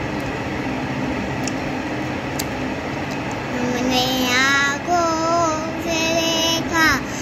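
A young girl begins singing a devotional recitation for a milad, a naat, about three and a half seconds in, in long, drawn-out, gliding notes. Before that there is only a steady background hum.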